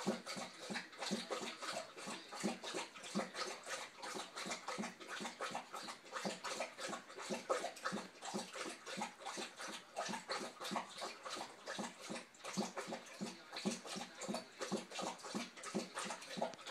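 A Saint Bernard lapping water with its tongue: a steady run of wet laps, about three a second.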